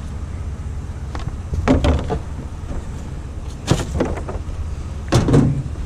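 Vehicle engine running steadily, with a few sharp knocks and thumps of a door and items being handled.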